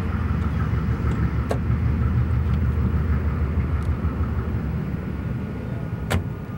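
Santa Fe diesel-electric locomotive running light, its engine a steady low rumble that eases off slightly as it pulls away, with a faint steady whine over it. Two sharp clicks, about a second and a half in and near the end, the second the louder.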